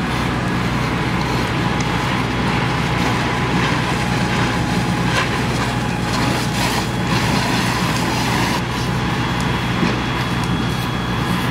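Fire-truck engines and pumps running steadily at a fire scene: a constant low mechanical drone with a faint steady whine above it.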